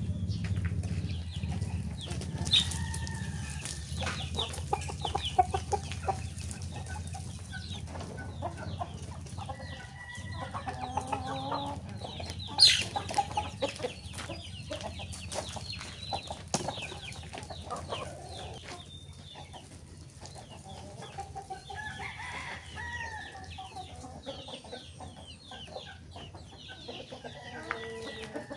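A flock of chickens, hens and roosters, clucking and calling on and off, with many scattered sharp taps; the loudest tap comes a little before halfway through. A low hum runs under the first several seconds.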